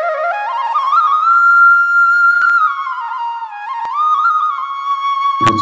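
Instrumental intro music: a single melody line climbs in small steps, holds a long high note, dips and settles on another held note. A low sustained tone comes in just before the end.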